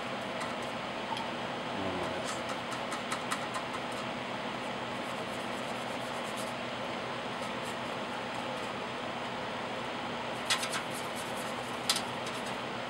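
Steady fan noise, with a few light clicks and taps near the end as the plastic model body is picked up and handled.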